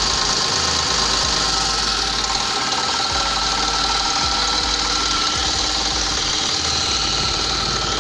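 Sonalika DI 50 RX Supreme tractor's diesel engine running steadily at a constant speed after its repair.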